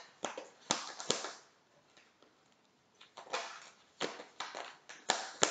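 Deck of tarot cards being shuffled by hand: clusters of short flicks and taps, pausing for a couple of seconds after the first second and then starting again.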